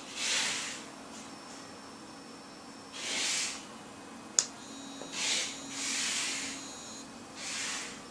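A sharp plastic click about four and a half seconds in, typical of a call pager's button being pressed. Around it are about five short bursts of hiss, each under a second long.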